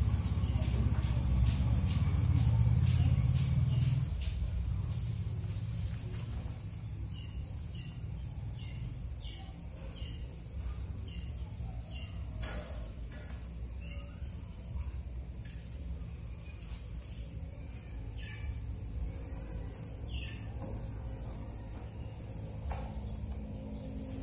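A steady high-pitched cricket-like insect trill, breaking off briefly a few times, over a low hum that drops in level about four seconds in, with faint scattered ticks.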